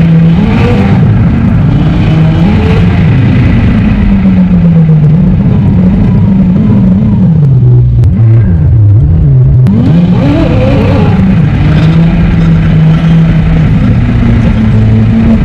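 McLaren 765LT's twin-turbo V8 under way, its note rising and falling over and over as the revs climb and drop. About eight seconds in the pitch dips sharply and then climbs fast again.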